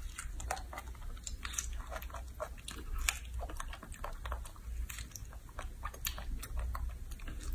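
Baby macaque chewing and biting into ripe strawberries close to the microphone: a run of irregular wet smacking and clicking mouth sounds.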